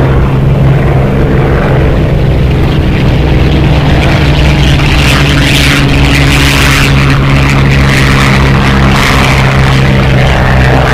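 Propeller-driven WWII fighter aircraft engines droning with a steady low hum, joined in the second half by harsher rushing, crackling bursts.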